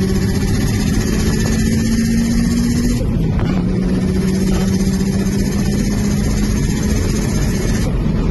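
Turbocharged Subaru Impreza WRX flat-four, fitted with a GT30 turbo, accelerating hard under boost, heard from inside the cabin. The engine note climbs, drops at a gear change about three seconds in, then climbs again through the next gear, with another break near the end.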